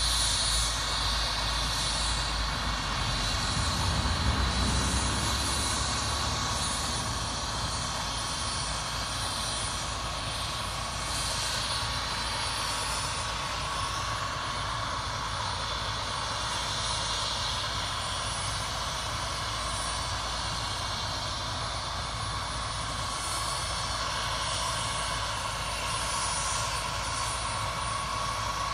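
Crop-dusting helicopter running on the ground: a steady engine and rotor noise with a constant whine, a little louder about four seconds in.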